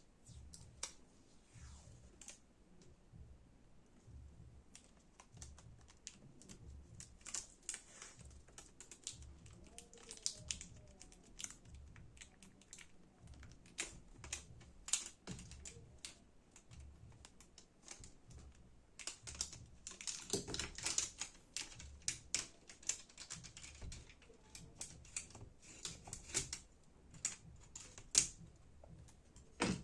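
Irregular light clicks and ticks from small-parts handwork on an open laptop, with a denser run of clicks about twenty seconds in.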